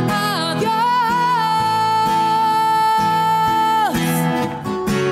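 Spanish-language Christian song with acoustic guitar: a singer holds one long note from just under a second in until about four seconds in, then the guitar carries on.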